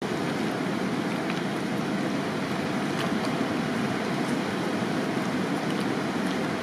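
Steady rush of a river running fast and turbulent through rapids at a bridge.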